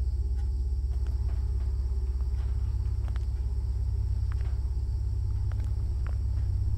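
A low, steady rumble with a fast flutter in its loudness, under a faint, steady high chirring like crickets.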